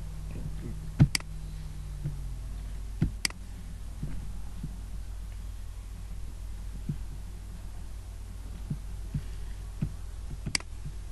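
Computer mouse clicking: three sharp single clicks, the second about two seconds after the first and the third near the end, over a steady low hum.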